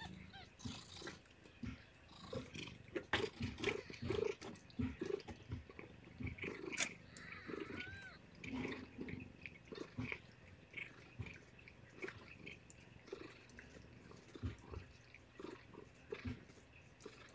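A mother cat licking and grooming close to the microphone, first her newborn kittens and then her own fur: a run of soft, irregular wet licking clicks and rustles, loudest in the first half, with a brief high squeak about eight seconds in.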